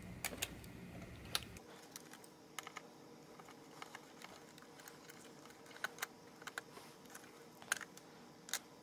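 Faint, scattered small clicks and taps of fingers and a screwdriver handling a laptop's mini PCIe WiFi card as its antenna leads are unclipped and the card is lifted out.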